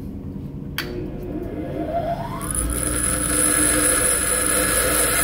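Pedestal bench grinder switched on with a click about a second in, its motor whine rising in pitch as the wheel spins up and then holding steady. From about halfway through, a steel lathe tool bit is held against the wheel, adding the steady hiss of grinding.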